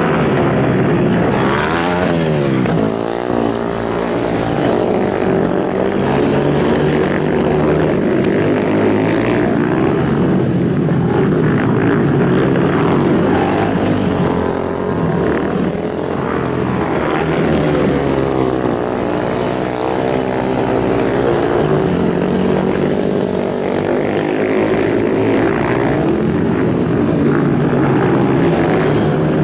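Racing motorcycle engines running hard and continuously, their pitch repeatedly rising and falling as the bikes rev and pass.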